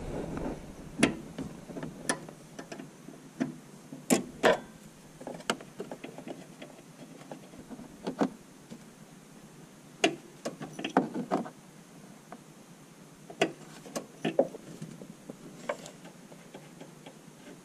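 Sharp clicks and light metallic knocks from hand tools and small nuts and fittings being handled at a Mitsubishi L300 van's brake master cylinder. They come irregularly, one every second or so, with no steady rhythm.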